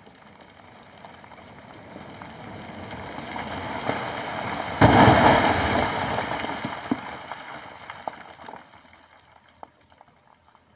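Rockfall: a rumble builds over a few seconds, then a heavy crash about five seconds in as a large rock block falls onto the road, followed by clattering debris dying away.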